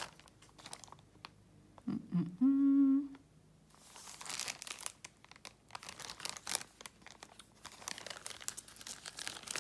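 A short closed-mouth hum from a woman about two seconds in, then the crinkling rustle of a clear plastic zip bag being handled and turned over.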